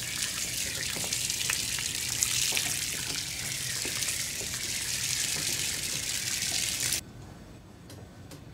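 Water from a garden hose spraying and splashing onto a teak deck, wetting it down before scrubbing: a steady rush of water that stops suddenly about seven seconds in.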